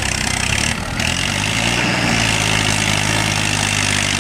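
Tractor engine running steadily. It dips briefly about a second in, then runs on slightly higher.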